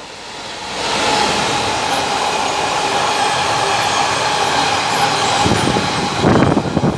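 British Class 66 diesel locomotive and its train of car-transporter wagons passing close by at speed, a loud steady rush and rumble with a steady whine running through it. The locomotive has an EMD two-stroke V12 engine. Low buffeting comes in near the end.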